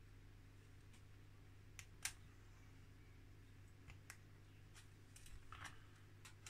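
Faint clicks and scratches of a hobby knife blade working at a photo-etched metal fret, cutting and prising out small parts: one sharper click about two seconds in, a couple of light ticks, then a cluster of scratchy clicks near the end, over a low steady hum.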